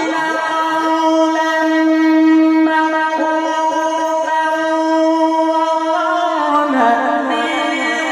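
Male Quran reciter's voice chanting in the melodic tilawat style, holding one long note for about six seconds, then stepping down through a short ornamented run and rising back to the same pitch near the end.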